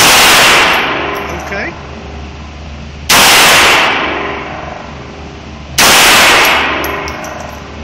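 Three single pistol shots, about three seconds apart, from a .380 handgun fired at a target. Each shot is very loud and rings on for a couple of seconds in the enclosed range.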